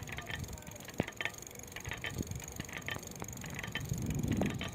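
Ancheer folding electric bike clicking from its gearbox as it is ridden: a steady run of light clicks, with one sharper knock about a second in and a low rumble near the end. The rider says it clicks only with weight on the bike and takes it for something loose inside the gearbox.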